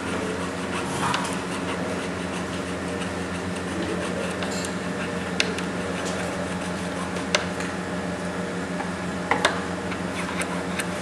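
Steady machine hum in a jewellery workshop, with a few sharp light clicks, two close together near the end, from a small steel hand tool working on a gemstone held in a setting block.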